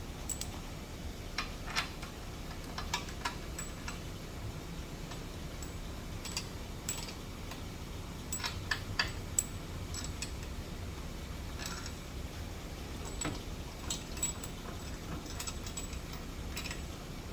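Scattered light metallic clicks and clinks, irregularly spaced, as steel parts and tools are handled while a milling fixture is trial-fitted on a milling machine, over a steady low background hum.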